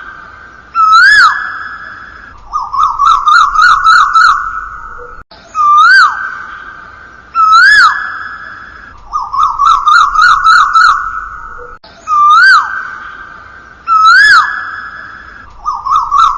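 A siren-like electronic sound effect repeating in a loop: two rising-and-falling whoops followed by a fast warble, about every six and a half seconds.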